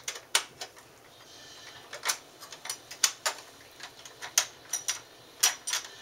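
Scattered sharp clicks and taps of metal and plastic as the handle bolt is worked out of the base of a ProGrade 9100 upright vacuum cleaner with a screwdriver and fingers. The clicks come irregularly, about eight to ten in all.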